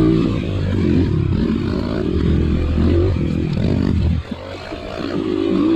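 Dirt bike engine running under throttle on a trail ride, its pitch rising and falling as the rider works the throttle, with a brief drop about four seconds in before it picks up again.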